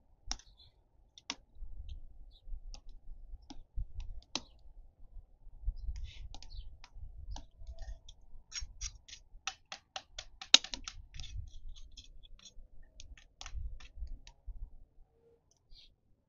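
Knife chopping on a wooden chopping board: scattered single taps, then a quick run of about four to five chops a second in the middle, with one much harder chop among them.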